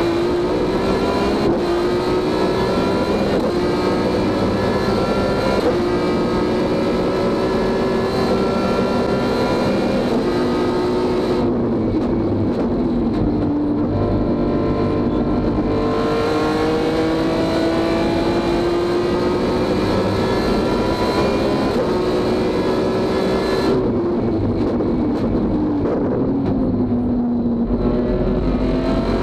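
BMW S54 straight-six of an E36 race car, heard from the cockpit, running at full throttle with revs climbing and quick sequential-gearbox upshifts. Twice, about twelve seconds in and again near the end, it comes off the throttle with falling revs, then pulls again.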